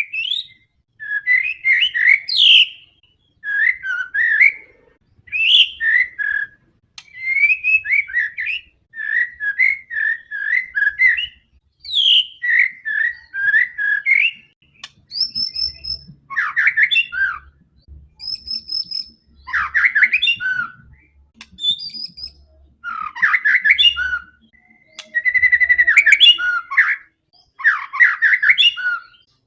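White-rumped shama singing continuously: a run of short phrases of clear whistled notes with brief pauses between them. From about halfway through, the phrases add fast chattering runs and high piping notes.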